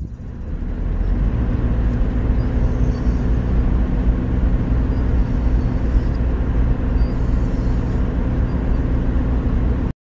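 Vehicle driving on a wet road, heard from inside the cabin: steady engine hum and road noise.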